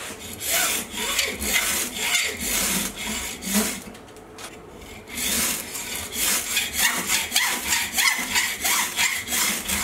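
Hacksaw sawing through a ferrocerium (ferro) rod clamped in a vise, in quick back-and-forth strokes, with a short pause about four seconds in.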